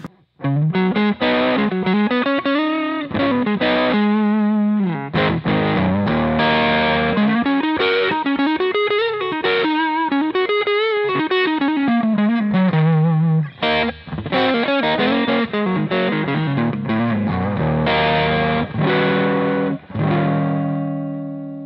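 Godin A6 hybrid guitar played through an Earthquaker Devices Palisades overdrive pedal with a light amount of dirt: a single-note lead line with bends and vibrato, then strummed chords. The last chord rings out and fades near the end.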